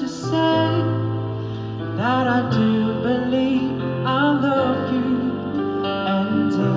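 Background music: a song with a voice singing over instrumental backing, in long held notes.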